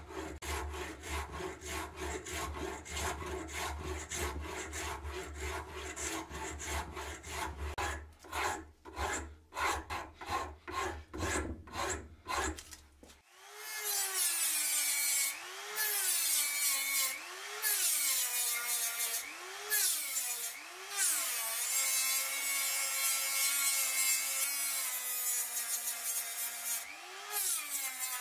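A rasp worked back and forth on a wooden knife handle in quick, rasping strokes that become slower and more spaced out partway through. About thirteen seconds in, a handheld rotary tool with an abrasive wheel starts whining on the wood, its pitch sagging and recovering again and again as it is pressed on and eased off.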